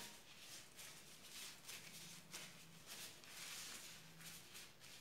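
Faint rustling of thin plastic food-prep gloves as the hands roll a ball of coconut mixture between the palms.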